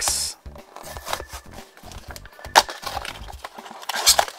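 Small cardboard blind box torn open by hand: irregular rips and clicks, with one sharp crack about two and a half seconds in. Near the end comes the crinkle of the foil bag inside as it is pulled out.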